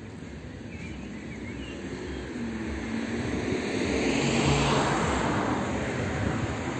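A motor vehicle passing close by, its engine hum and tyre noise growing louder to a peak about four and a half seconds in, then easing off slightly.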